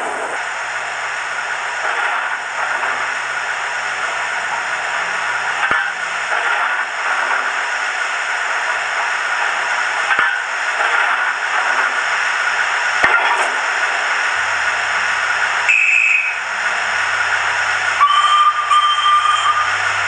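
Hornby HM7000 sound decoder playing the W1 steam locomotive sound file through the model's small speaker, with the engine standing: a steady hiss of steam broken by a few sharp clanks. Near the end there is a short high whistle, then the locomotive's whistle held for about two seconds.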